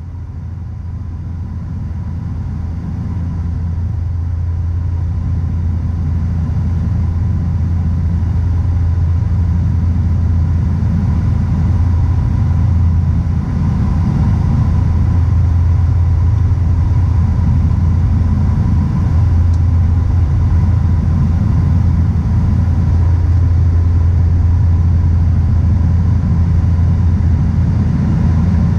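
Cabin noise of a Dash 8 Q400 turboprop in flight: its Pratt & Whitney PW150A engines and six-bladed propellers make a steady deep drone, with a faint whine above it. The sound swells over the first few seconds and then holds even on the approach.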